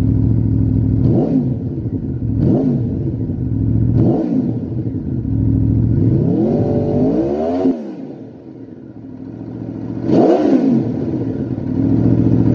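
Aprilia RSV4's 1000 cc V4 engine idling through a Lextek SP1 aftermarket silencer and being revved with the throttle: three quick blips in the first four seconds, a longer rev held for about a second and a half around the middle, a brief dip in the idle, then one more sharp blip about ten seconds in before settling back to idle.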